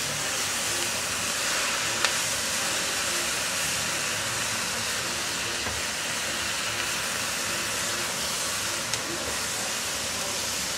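Flowering garlic chives sizzling in a hot nonstick wok as they are stir-fried, a steady hiss of steam and frying from the juice at the bottom of the pan, with a couple of light spatula ticks.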